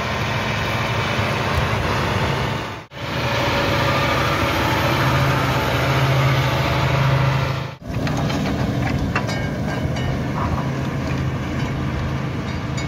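Claas Arion 610 tractor's six-cylinder diesel engine running steadily under load while pulling a plough, with two brief breaks in the sound.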